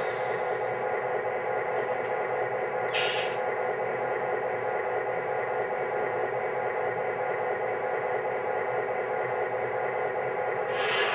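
Lionel F3 diesel locomotive's onboard sound system playing a steady diesel idle while the model stands still, with a short hiss about three seconds in.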